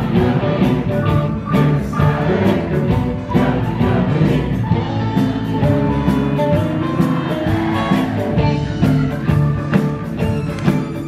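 Live band music: an upbeat rock-and-roll song with a steady drum beat, guitar and keyboard, and singing.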